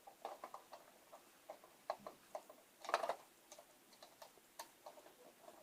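Small, irregular clicks and taps of a screwdriver tightening the screws that hold a G scale model train car's truck, with a louder cluster of clicks about three seconds in.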